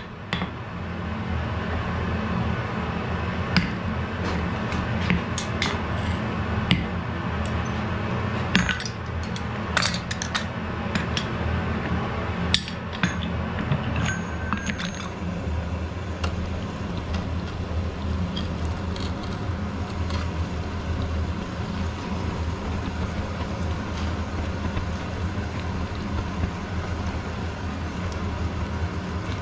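Steady low hum of smithy background with scattered single metallic clinks and knocks in the first half, from iron and tongs being handled at the anvil. There are no hammer blows.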